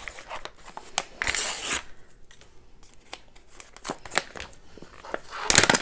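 Packaging pouch being torn open by hand: small crinkles and clicks, with a tearing rip about a second in and a louder one near the end.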